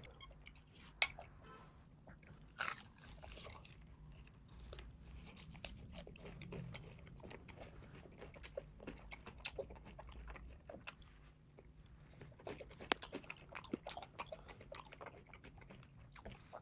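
Close-miked eating, sped up to double speed: crunchy bites and fast chewing, a dense run of sharp crunches with a few louder ones.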